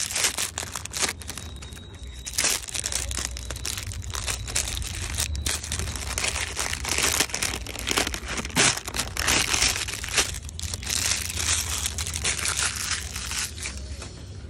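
Thin printed plastic wrapper crinkling and tearing, in irregular rustling crackles, as it is peeled by hand off a spool of kite string.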